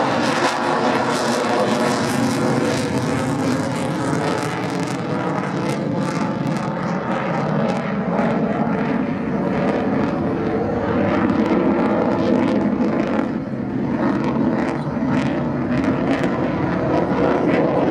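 Twin-engine F/A-18 fighter jet flying overhead: loud, steady jet noise with a ragged crackle running through it.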